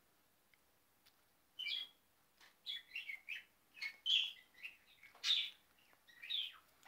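Budgerigar chirping and chattering: a run of short, high calls, some sliding in pitch, starting about a second and a half in and going on until near the end.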